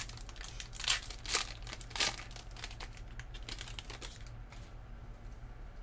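Trading-card pack wrapper crinkling and tearing as it is opened and the cards are handled, with three louder rustles in the first two seconds and softer rustling that stops about four and a half seconds in.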